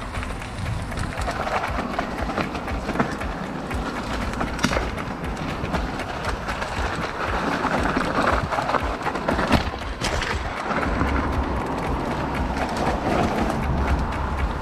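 Mountain bike ridden over a rough trail: tyres rolling and the bike rattling, with a dense run of clicks and knocks.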